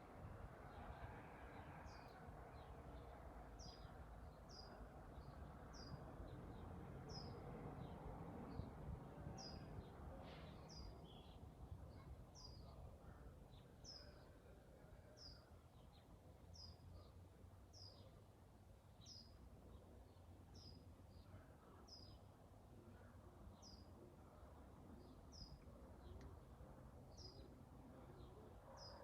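A bird calling repeatedly: short, high notes that fall in pitch, about one a second, faint over low background noise.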